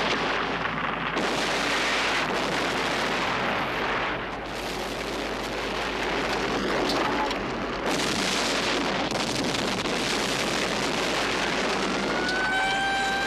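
Explosions followed by a dense, continuous rumble of blasts and fire, with fresh bursts about a second in and again about eight seconds in. Near the end a siren winds up and holds a steady wail.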